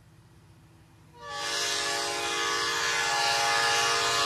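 Metra commuter locomotive's horn sounding one long, steady blast that starts suddenly about a second in.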